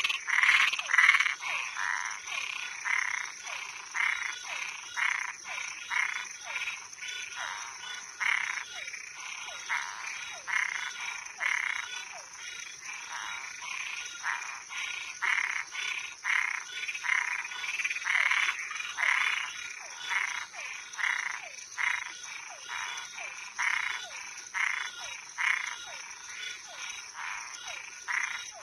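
A chorus of frogs and treefrogs calling at night, short calls repeating about one to two times a second and overlapping, over a steady high-pitched drone of crickets.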